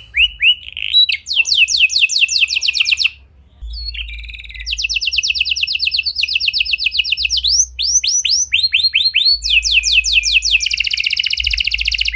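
Red domestic canary singing: fast trills of repeated downward-sliding notes, one phrase running into the next, with a short break about three seconds in.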